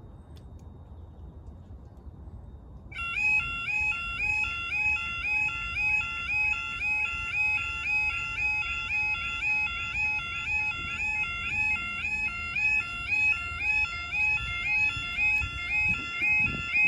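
Level crossing audible warning alarm starting about three seconds in: a loud electronic yodel, a warbling tone that repeats in a regular cycle. It sounds as the road lights come on and the barriers lower, the signal that a train is approaching.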